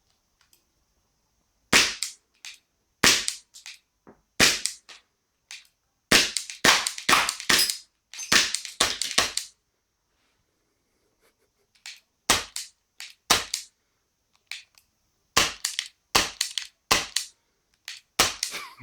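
Walther CP99 CO2 air pistol, suppressed by two stacked airgun silencers, fired again and again: a run of short sharp cracks, sometimes several in quick succession. The gun itself makes very little sound, so much of what is heard is the pellets hitting the target.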